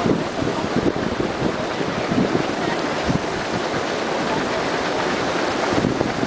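Volcanic fumarole venting steam from the rocky ground: a loud, steady rushing hiss.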